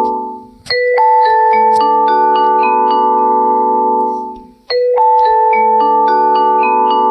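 A phone ringtone: a short melody in bright, struck, mallet-like tones, quick high notes over held lower ones. The phrase dies away and starts over about every four seconds, so it is heard twice.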